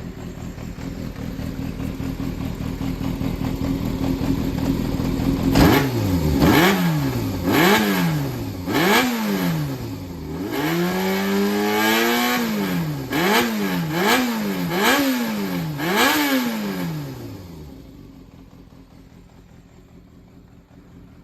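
Yamaha XJR400 air-cooled inline-four motorcycle engine idling, then revved in a run of quick throttle blips, with one longer held rev in the middle, before settling back to a quiet idle. The engine is a used running unit with 15,000 km on it, checked for starting with no abnormal noise.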